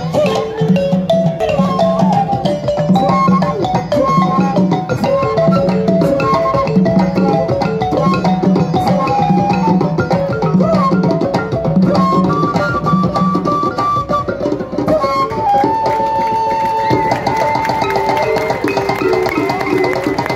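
Live West African drum ensemble: djembe hand drums with a low drum beat about once a second, and a melody over them. About two-thirds of the way through the low beat drops out and the melody turns to longer held notes.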